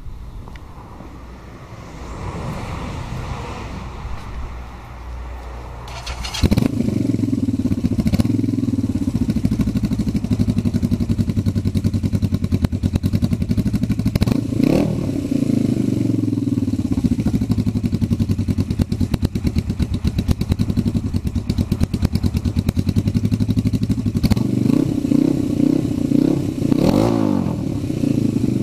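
Yamaha XS400 parallel-twin engine starting suddenly about six seconds in, after a few seconds of wind noise on the microphone, then idling steadily. The throttle is blipped twice, around the middle and near the end, each time a quick rise and fall in pitch.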